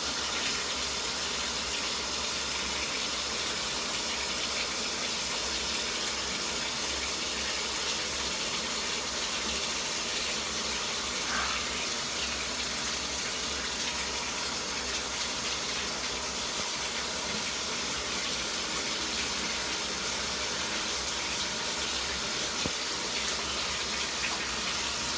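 Water from a bathtub spout running steadily into the tub, an even rush.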